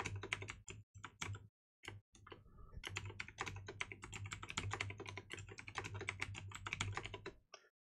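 Typing on a computer keyboard: a few short runs of keystrokes with brief pauses in the first two seconds, then a quick, even run of keystrokes that stops shortly before the end.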